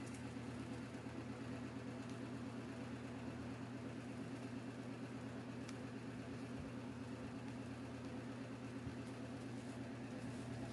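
Steady, low machine hum with a few faint light taps.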